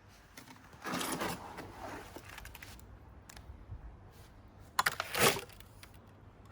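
Two short bursts of scraping and knocking, about a second in and again around five seconds in: wet cement mix being scraped and shifted in a bucket.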